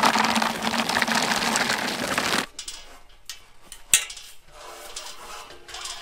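Dry feed poured from a paper sack into a plastic bucket: a steady rattling hiss that stops abruptly a little over two seconds in. After it come a few light knocks and one sharp click.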